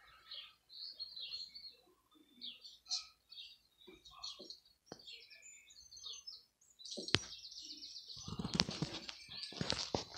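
Birds chirping in a film soundtrack heard through a television speaker. About seven seconds in comes a sharp click, then a loud, rattling clatter as the fallen metal studio light is handled on the brick pavement.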